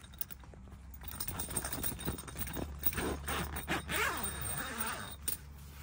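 The door zipper of a canvas bell tent being pulled open in a run of rasping tugs, loudest near the end.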